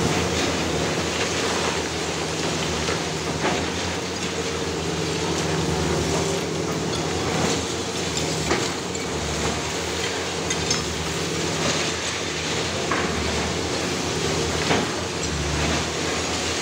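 Long-reach Hyundai demolition excavator's diesel engine running steadily, with scattered knocks and crashes of concrete and debris breaking away and falling as the building is pulled down; the loudest crashes come about halfway through and near the end.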